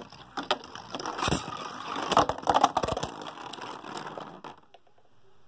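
3D-printed Beyblade spinning tops whirring and grinding on a plastic stadium floor, with many sharp clacks as they collide, the hits loudest in the middle. One hit knocks the switch frame off a top, and the sound dies out about four and a half seconds in as the tops come to rest.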